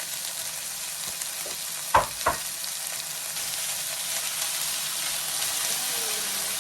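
Chopped peppers, onion and garlic sizzling steadily in oil in a frying pan, with two sharp knocks about two seconds in.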